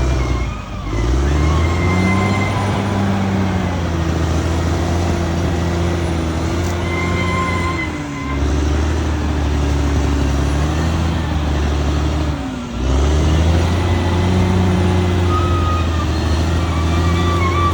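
Caterpillar D6R XL bulldozer's diesel engine running steadily, its pitch sagging and recovering briefly three times.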